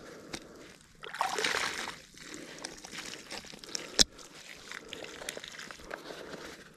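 Water sloshing and pouring out of a black roll-top bag onto the ground, loudest for about a second near the start, then the wet bag material crinkling as its top is rolled down, with one sharp click about four seconds in.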